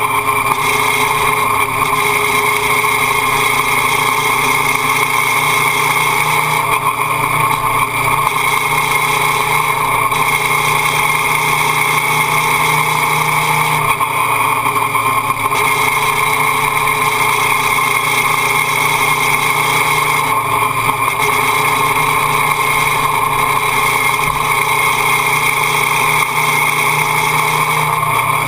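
Motorcycle engine running at steady revs, with wind and road noise rushing past.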